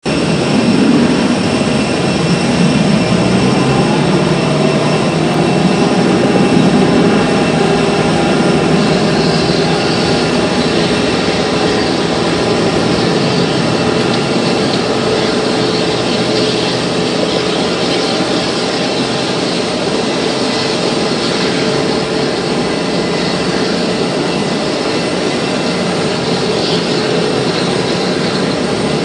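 Steady turbine whine over a broad rumble from an Airbus A320 being pushed back by a tug, with several high tones held throughout.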